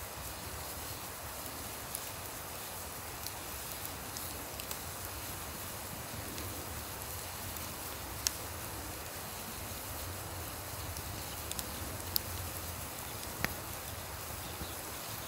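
Wood campfire crackling, with scattered sharp pops from the burning logs, over a steady rushing river.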